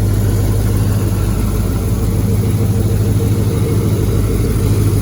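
An LS-swapped truck's V8 engine running at a steady idle, running smoothly.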